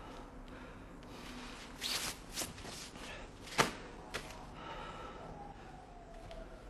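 A few faint knocks and clicks, the loudest a single sharp click about three and a half seconds in, then a faint tone gliding slowly downward near the end.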